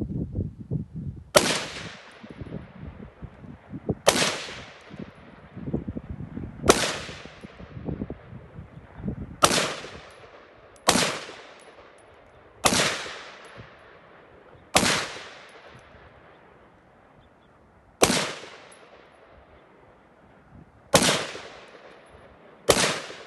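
AR-15 rifle chambered in 6.8 mm fired in single, unhurried shots: ten shots one to three seconds apart, each sharp crack followed by a long fading echo.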